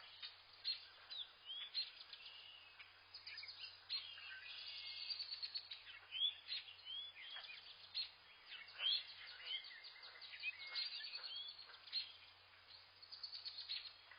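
Wild birds chirping and calling: many quick high chirps, short down-slurred whistles and bursts of rapid twittering, overlapping one another, over a faint steady low hum.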